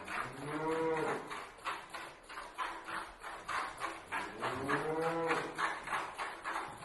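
Milk squirting into a pail as a cow is hand-milked, in a steady rhythm of about three squirts a second. The cow moos twice, each call about a second long and rising then falling in pitch.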